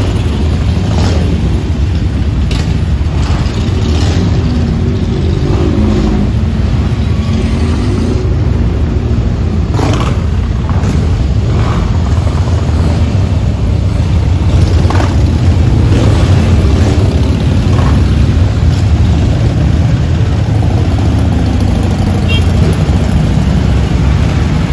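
A line of motorcycles, mostly cruisers, riding slowly past one after another, their engines making a loud, steady low rumble.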